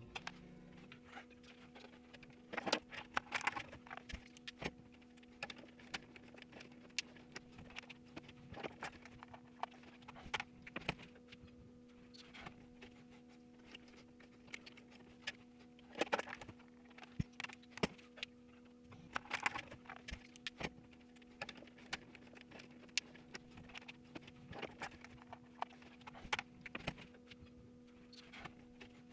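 Irregular clicks, snaps and rustles of plastic clamp-on current transformers being opened and snapped shut around circuit wires, and wires being handled inside a breaker panel, over a steady low hum.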